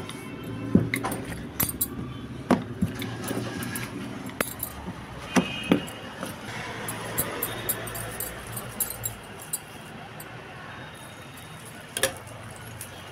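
Wooden rolling pin knocking and clacking against the rolling surface as missi roti dough is rolled out: several sharp knocks in the first half, one more near the end, over a steady low hum.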